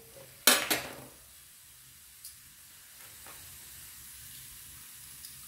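Cumin seeds frying in hot oil in a kadhai. A short loud burst comes about half a second in, followed by a faint, steady sizzle with an occasional small pop.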